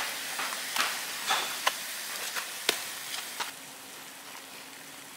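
Mutton chukka sizzling in a black iron kadai, with several sharp clicks over the first three and a half seconds. After that the sizzle goes fainter and steadier.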